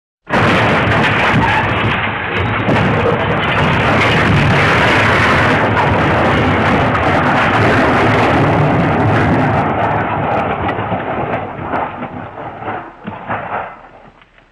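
A sound-effect crash: a sudden loud rumbling noise that holds for about ten seconds, then breaks up into scattered crackles and dies away near the end.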